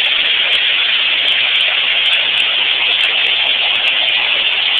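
Heavy hail pelting down in a dense, steady clatter, loud enough to drown out a voice.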